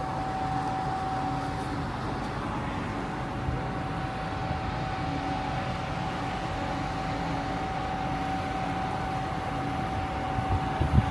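The Sunflower Kurenai car ferry under way: a steady, even drone of its engines and machinery, with a constant high hum over it and a few low bumps near the end.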